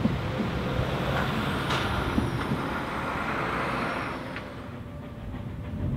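Road traffic passing, cars and possibly a heavier vehicle, with a thin high squeal from about two seconds in. The noise drops away about four and a half seconds in.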